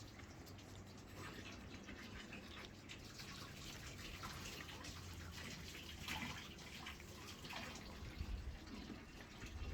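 Faint water trickling and dripping, a quick, uneven run of small drips and splashes.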